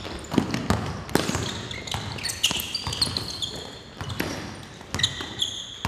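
A basketball bouncing with irregular thuds on a hardwood gym floor, mixed with high sneaker squeaks from players running and cutting; the squeaks bunch up in the middle and near the end.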